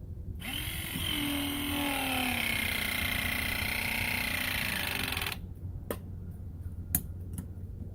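Ridgid ProPress battery press tool running one crimp cycle on a plumbing press fitting: its motor whines steadily for about five seconds and then cuts off suddenly, followed by a few sharp clicks.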